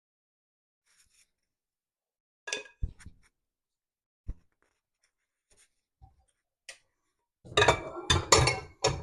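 Kitchen utensils knocking and scraping against dishes while cake batter is moved into pie plates. A few scattered taps and clinks come first, then a quick run of louder knocks and scrapes near the end.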